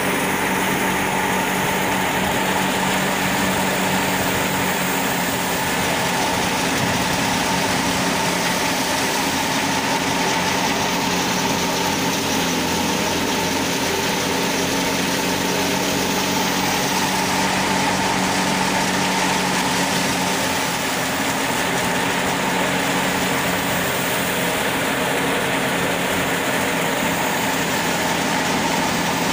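Tractor-driven wheat thresher running steadily while wheat sheaves are fed in. It gives a constant machine drone with a steady hum from the tractor engine and the spinning threshing drum.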